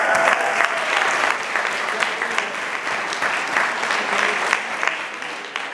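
Audience applauding, with a voice cheering briefly at the start; the clapping thins out near the end.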